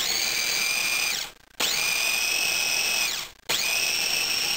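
Mini food processor's motor run in three short pulses, chopping tomato chunks into pulp. Each pulse is a steady whine that rises as the blade spins up and falls away as it stops, with brief gaps between.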